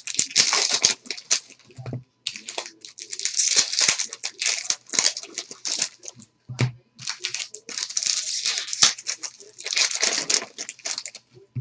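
Trading-card pack wrappers crinkling and tearing as packs are ripped open and handled, in crackly bursts with brief pauses.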